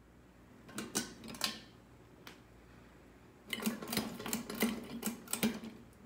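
Hunter Coastal Breeze 52-inch ceiling fan running, with two bursts of rapid rattling clicks, one about a second in and a longer one from about the middle to near the end.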